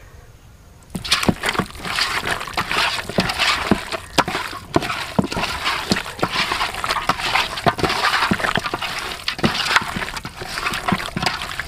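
A hand squeezing and turning raw chicken pieces in a wet spice marinade inside a metal pot: an irregular run of squelching and sloshing with quick sharp knocks, starting about a second in.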